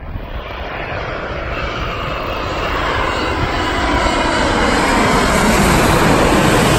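Boeing 787-8 Dreamliner jet engines on final approach with gear down. The sound grows steadily louder as the airliner passes low overhead, its whine sliding down in pitch.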